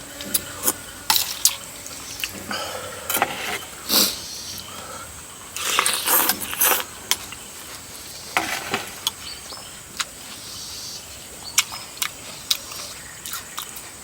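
Close-up wet eating sounds: slurping and chewing of rice noodles in coconut curry and tender stewed chicken feet. There are many short sharp clicks and a few longer slurps, the longest about six seconds in.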